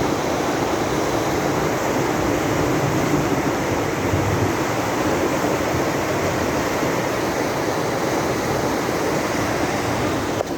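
Fast-flowing floodwater rushing in a steady, loud roar of moving water, with some wind on the microphone. The sound breaks briefly near the end.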